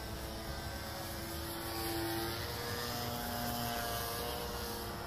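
Radio-controlled model airplanes flying overhead: their motors and propellers make a steady drone of several tones that shift slowly in pitch as the planes move about.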